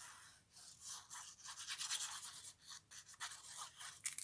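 Faint, irregular scratching of a liquid-glue bottle's tip drawn across the back of a paper panel, laying down lines of glue.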